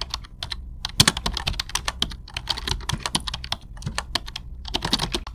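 Typing on a computer keyboard: quick, irregular key clicks in short runs with brief pauses between them.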